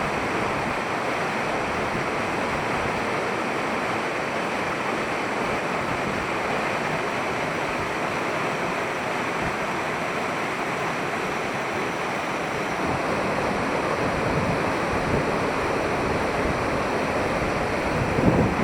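Waterfall rushing in a steady roar of white water, growing slightly louder in the last few seconds.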